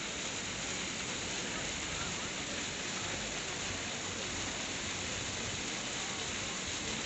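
Ground-level fountain jets spraying up and splashing back onto wet paving stones: a steady rush of falling water.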